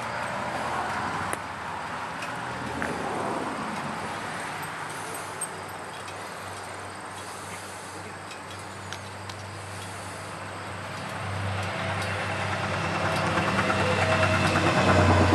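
Suzuki Intruder 1400 V-twin idling through Cobra drag-pipe exhaust with the baffles fitted, a steady low engine note that grows louder over the last few seconds.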